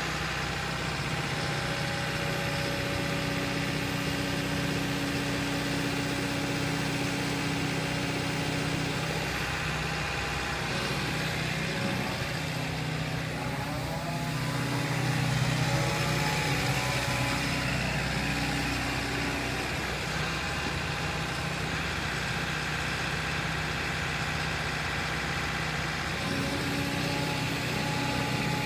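2013 JCB JS145WT wheeled excavator's diesel engine running steadily as the machine moves about. The engine note shifts and gets louder about halfway through.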